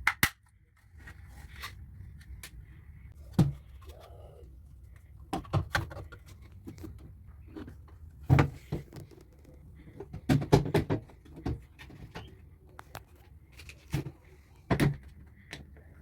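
Irregular sharp clicks and knocks, a few in quick clusters, over a low steady hum.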